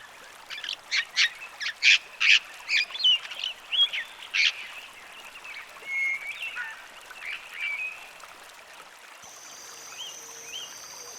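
Cape parrot calling: a quick series of short, sharp, harsh shrieks in the first few seconds, then a few softer, scattered calls.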